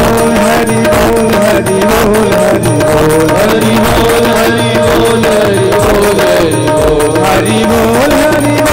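Devotional kirtan music: a hand drum keeps a steady rhythm under sustained, slightly wavering melodic tones.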